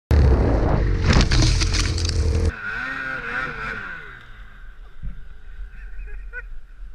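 Snowmobile engine revving hard for about two and a half seconds, then cutting back abruptly to a lower, wavering note whose pitch falls away as the revs drop.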